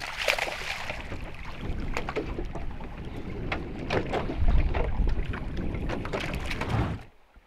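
A small golden dorado thrashing and splashing at the surface beside the boat as it is brought in on the line, over wind rumbling on the microphone. The sound cuts off suddenly near the end.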